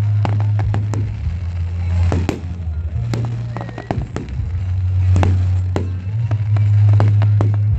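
Display fireworks going off in quick succession, a string of sharp bangs and pops. Under them runs a loud, deep bass drone that steps between a few pitches.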